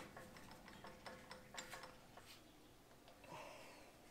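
Near silence with about six faint, light metallic ticks in the first two and a half seconds as a magnetic drill press is handled on a steel beam.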